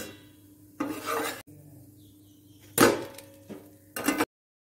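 A spatula scraping and clattering against a nonstick frying pan in a few short bursts as a semolina pancake is worked and turned, the loudest about three seconds in. The sound cuts off suddenly near the end.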